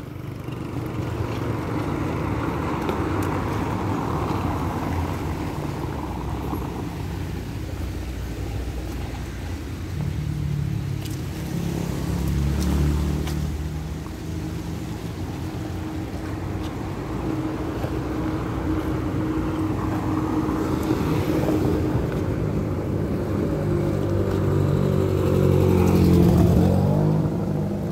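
Passing car traffic on wet streets: engines and tyre noise on the wet road, with cars going by more loudly about halfway through and again near the end.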